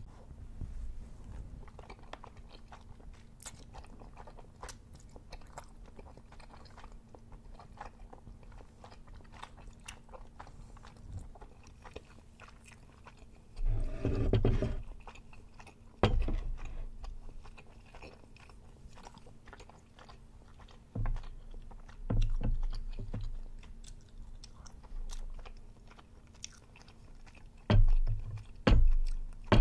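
Close-miked eating sounds of chewy tteokbokki rice cakes with melted cheese: steady chewing with many small wet mouth clicks and smacks. A few louder mouth sounds break through, the loudest about halfway through as a wooden spoon is brought to the mouth, and more near the end.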